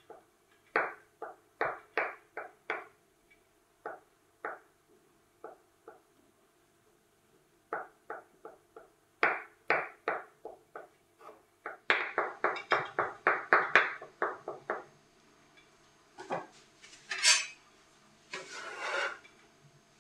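Kitchen knife chopping boiled eggs on a wooden cutting board: uneven knocks of the blade on the wood, breaking into a quick run of about five chops a second after the middle. Near the end, a few scrapes of a metal bench scraper gathering the chopped egg off the board.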